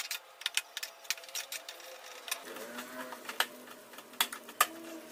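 Metal spatula tapping and scraping against a stainless-steel pan as cooked flattened-rice (poha) upma is stirred, in quick irregular clicks.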